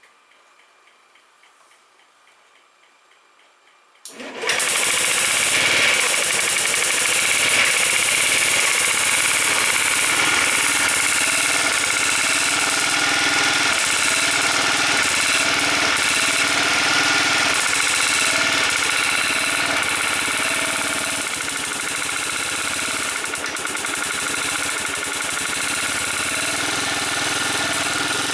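Honda Zoomer scooter's four-stroke single-cylinder engine, nearly silent at first, then started about four seconds in and running with a loud, rapid tappet clatter. The clatter persists even with the oil at the proper level, which the mechanic takes for a galled, worn camshaft from long-neglected oil changes.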